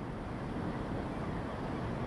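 West Midlands Railway Class 172 diesel multiple unit drawing slowly into the platform: a steady low rumble.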